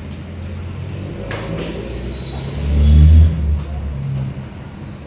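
A low rumbling hum, swelling loudly about three seconds in, with a few light clicks about a second and a half in.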